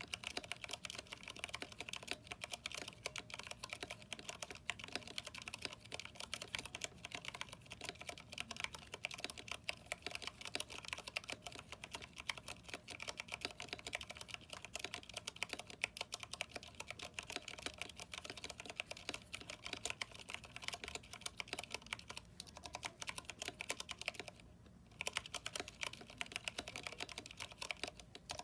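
Fast, continuous typing on a Vortex 10th Anniversary Edition mechanical keyboard with Cherry MX Brown switches, NP PBT keycaps and lubed stabilizers: a dense stream of keystroke clacks, with one brief pause about three-quarters of the way through.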